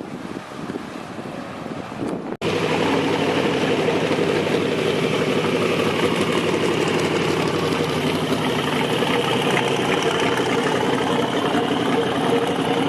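A vehicle engine idling steadily close by, cutting in abruptly after about two seconds of wind noise.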